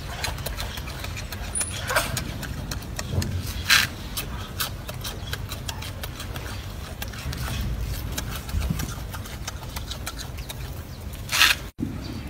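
A golden snub-nosed monkey eating leafy greens: scattered crisp crunches and leaf rustles, a few louder, over a steady low rumble.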